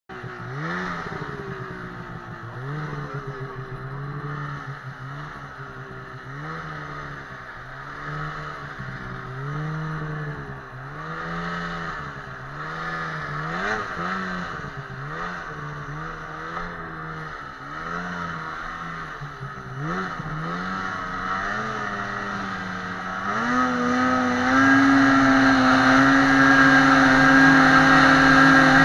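2017 Ski-Doo 800R snowmobile's two-stroke twin engine heard from the rider's seat, its pitch rising and falling with repeated short throttle blips. About three quarters of the way through it climbs to a higher, steady pitch and holds it, louder, as the sled speeds up.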